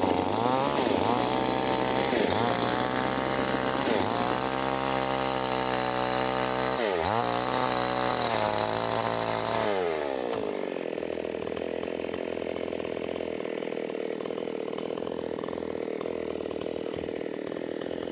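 MS 381 two-stroke chainsaw running at high revs, its pitch dipping and picking up again several times. About ten seconds in it drops to a steady idle.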